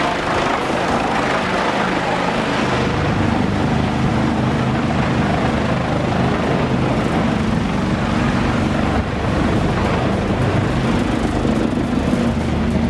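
Heavy engine-driven machine running steadily: a continuous engine drone over a dense noisy roar, the engine tones growing stronger about three seconds in.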